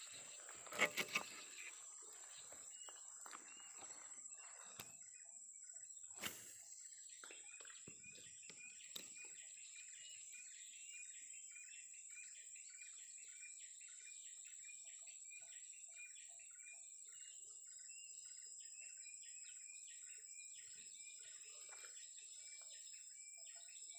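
Swamp ambience: a steady high-pitched insect drone with many short, repeated chirps of insects and birds. A few sharp knocks stand out, three in quick succession about a second in and one more around six seconds.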